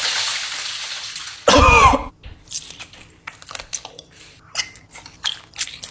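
A person eating close to the microphone. A rushing noise runs for about a second and a half, then comes a short loud throaty vocal sound, then a run of crisp chewing clicks.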